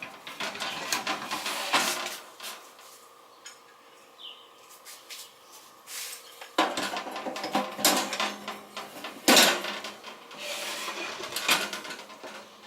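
Clatter, knocks and rubbing of metal rotisserie parts being handled as a rotisserie oven is loaded. It comes in two bouts with a quieter stretch between them, the second bout the louder one.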